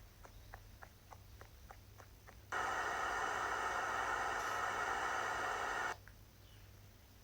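Faint rapid ticking, about three to four ticks a second. About two and a half seconds in, a harsh, static-laden buzzing drone switches on suddenly, holds steady for about three and a half seconds, and cuts off abruptly.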